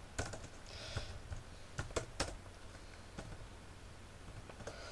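Typing on a computer keyboard: scattered, irregular keystrokes with short pauses between them.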